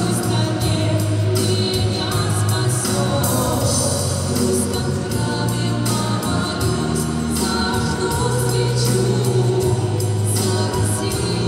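Two female vocalists singing a song together into microphones, over an amplified backing track with a bass line and a steady beat.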